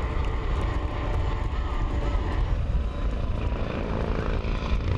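Steady engine drone of a Coast Guard C-130 Hercules's turboprops and HH-65 Dolphin helicopters flying overhead, with a faint high whine above the rumble.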